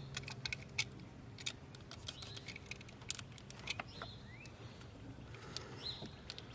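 Faint scattered clicks and taps, with a few short bird chirps about two thirds of the way in and again near the end.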